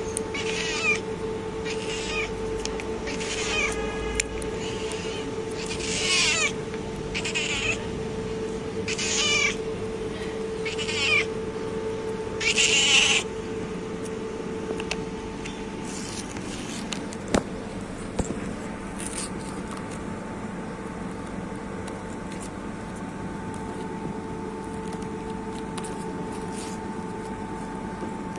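White street cat meowing over and over, about ten meows spaced one to two seconds apart, the last and loudest about thirteen seconds in. After that the meowing stops and only a few faint clicks and a steady low hum remain.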